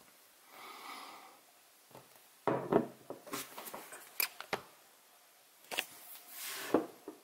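Handling noise of a glass perfume bottle: a soft rub of fingers on the glass, then a few sharp knocks and clicks about two and a half seconds in as it is set down on a table, and another rub ending in a knock near the end.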